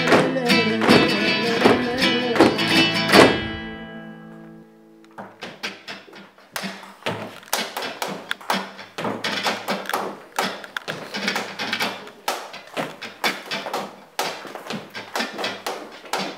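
Flamenco music: guitar with sharp percussive strikes ends on a final accented chord about three seconds in that rings out and fades. After a brief lull, softer flamenco guitar with quick percussive taps starts up again.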